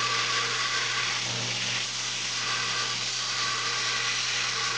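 Belt grinder running at a steady speed: an even whir of the abrasive belt and motor over a low hum.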